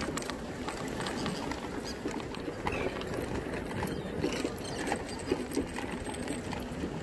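Mobility scooter rolling along a wooden pier deck, its wheels rattling and clicking over the plank joints.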